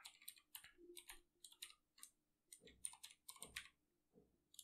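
Computer keyboard typing: a quick run of faint key clicks, with a short pause near the end.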